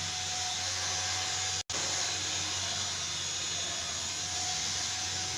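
Homemade mini hair dryer's small DC motor fan running steadily: an even rush of air with a steady motor whine and a low hum, cut off for an instant about two seconds in.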